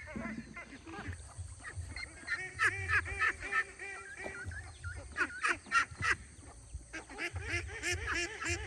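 A flock of domestic ducks quacking, many short overlapping calls coming in bursts, with a low rumble underneath.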